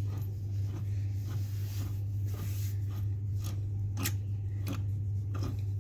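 Hex key turning a bolt in a gaming chair's backrest bracket: scattered small metal clicks and scrapes, the sharpest about four seconds in, over a steady low hum.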